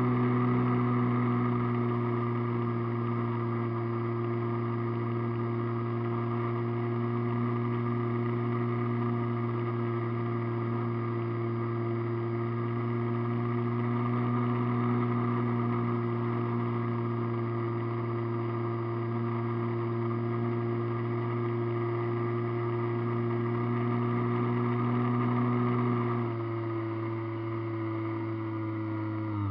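RC airplane's motor and propeller running steadily at cruise throttle, heard from a camera on board the plane: a steady drone with a stack of even tones. About three seconds before the end the pitch and level step down slightly as the throttle is eased back.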